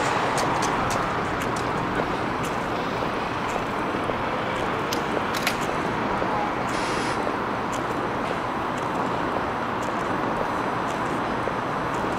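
Steady city road-traffic noise, with a brief hiss about seven seconds in and scattered light clicks.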